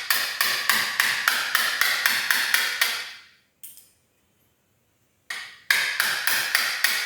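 Hammer striking a wood chisel, cutting a lock mortise into a plywood door: a fast, even run of ringing blows, about four a second, then a pause with one lone blow, then another run near the end.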